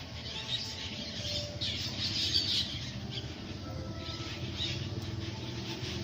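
A flock of birds calling with harsh, raspy squawks, many calls overlapping, loudest about two seconds in, over a steady low hum.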